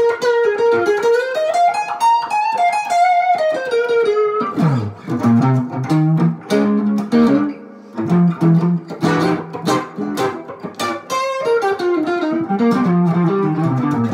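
Collings Eastside LC hollow-body electric guitar played through an amp with overdrive. It plays single-note lead lines with bent notes in the first few seconds, then lower-register phrases.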